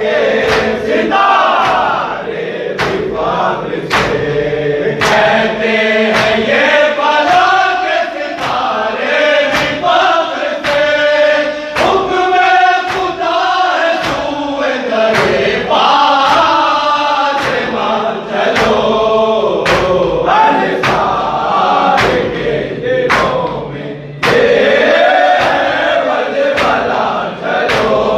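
Group of men chanting a nauha, an Urdu mourning lament, in unison. A steady beat of sharp hand strikes, about one a second, keeps time: the chest-beating of matam.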